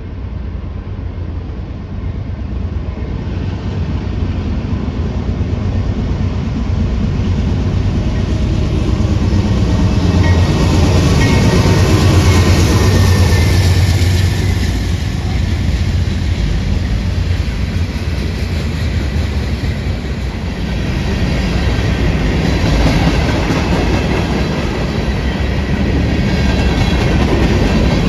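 BNSF diesel freight locomotive approaching and passing, its engine rumble growing louder to a peak about twelve seconds in. A long string of freight cars (covered hoppers, tank cars, boxcars) follows, rolling by with steady wheel-on-rail noise.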